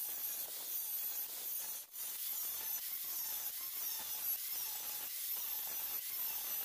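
Steel being ground or sanded with an abrasive: a steady hissing rasp with faint wavering high squeals, which breaks off for an instant about two seconds in.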